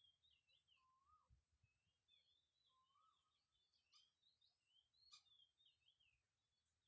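Faint songbirds calling: a run of short, curving chirps repeated through most of the stretch, with a lower slurred whistle twice, about a second in and about three seconds in.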